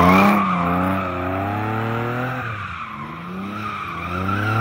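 Sports car drifting: the tyres squeal over the engine, whose revs rise and fall. The sound eases off about halfway through, then picks up again near the end.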